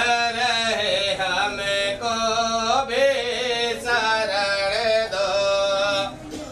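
A devotional Hindi bhajan to Shiva sung in long, wavering melodic notes, with a short break for breath near the end.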